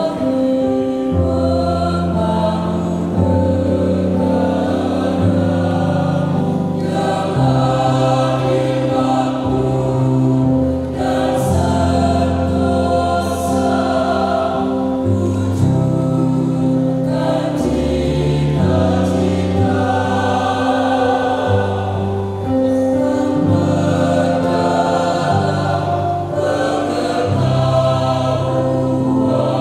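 A choir singing in long held chords that change every couple of seconds.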